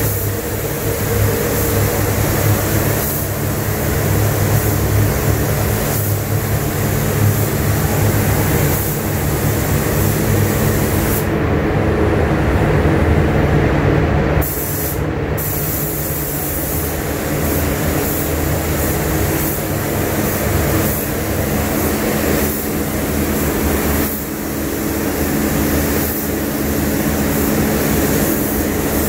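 Paint spray gun hissing as paint is sprayed onto a car body, over the steady drone of the paint booth's ventilation. The hiss stops for about three seconds near the middle, then resumes.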